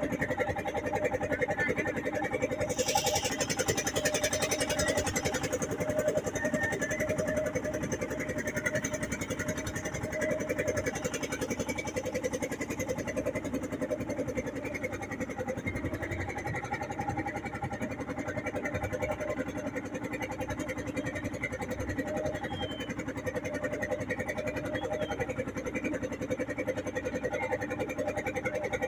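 An engine running steadily at an even speed, with a fast pulsing throb and no change in pitch. A short hiss comes in about three seconds in.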